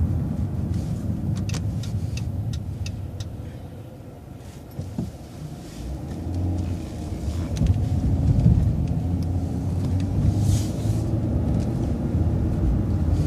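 City transit bus engine heard from on board, easing down to a low idle about four seconds in, then pulling away again through a turn, its engine note rising and falling as it accelerates.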